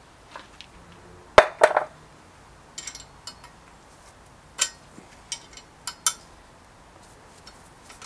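Metal clinks and knocks from bicycle cockpit parts and a hex key. A loud clank and a short rattle come about a second and a half in, then scattered sharp clicks follow as the hex key works the top-cap bolt on the stem.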